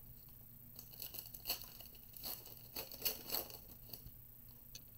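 Foil wrapper of a 2022 Bowman baseball card pack being torn open and crinkled: a run of crackling rustles from about a second in until about three and a half seconds.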